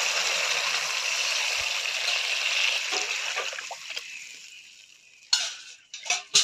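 Curry spice paste sizzling in hot oil in a wok, the sizzle dying away after about four seconds. A few sharp metal clinks of utensils follow near the end, the last the loudest.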